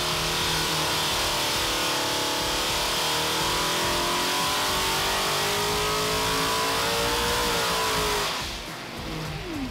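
355 cubic-inch Chevrolet small-block V8 dirt-track racing engine running hard on an engine dynamometer, its pitch climbing slowly through a pull. About eight seconds in it drops in pitch and loudness as it is backed off.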